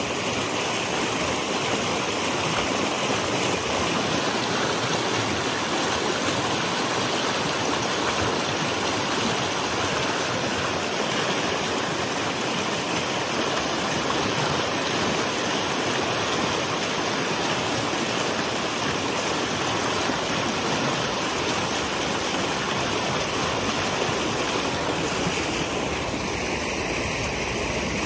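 Fast, shallow creek rushing over rock slabs and breaking into white water: a steady, unbroken water noise.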